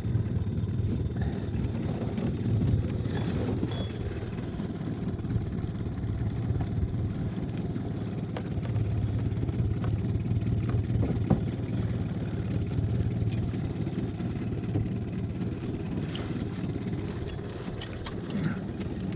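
Small Mercury outboard motor running at a steady low drone.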